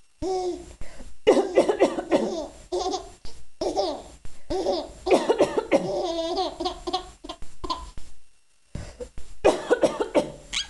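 A woman coughing repeatedly while a young child laughs at it in bursts, with a brief pause about eight seconds in.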